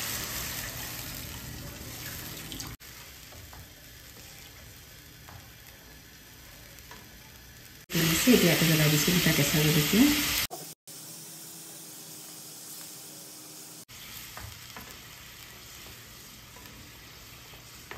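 Spiced onion-tomato masala for a fish curry sizzling in hot oil in a pan as hot water goes in, the hiss fading over the first few seconds. A lower sizzle carries on under stirring, with a louder burst about eight seconds in.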